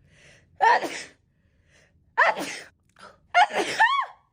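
A woman sneezing three times in quick succession, about a second and a half apart, with faint in-breaths before each. The third sneeze ends in a voiced cry that falls in pitch.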